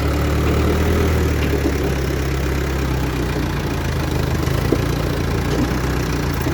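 Backhoe's diesel engine running at a steady speed, with no revving.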